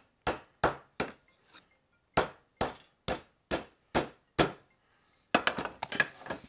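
A wedge being hammered into the slot of a wooden hammer handle to lock the head on: a steady series of sharp blows about two or three a second, with a short pause after the first few, then a quick flurry of blows near the end.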